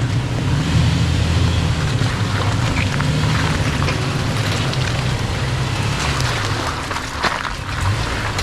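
4x4 engine running steadily at low speed while crawling a rocky trail, with tyre and suspension noise and a few short knocks from the rocks, one near the end.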